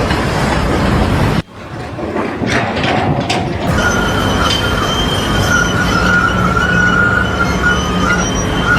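Loud machine or vehicle noise that breaks off abruptly about one and a half seconds in. It comes back with a few sharp knocks, then a steady high whine over the running noise.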